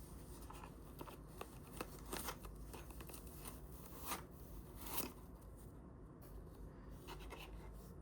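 A run of light clicks, taps and rustles from something being handled at close range, with the two strongest clicks about four and five seconds in.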